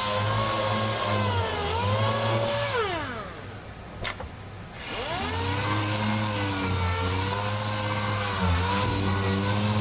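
Pneumatic orbital sander dry-sanding body filler on a car door: a steady air-driven whine over hiss, its pitch dipping now and then. About three seconds in it winds down, there is a single click near four seconds, and it spins back up about a second later.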